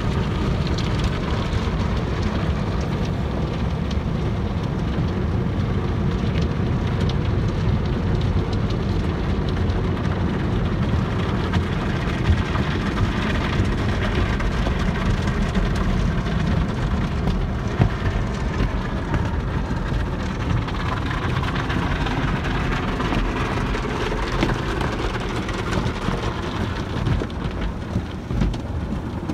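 Automatic car wash heard from inside the car: water spray and soap pelting the roof and glass while soft-cloth brushes rub across the windshield. It is a steady rushing noise with a heavy low rumble.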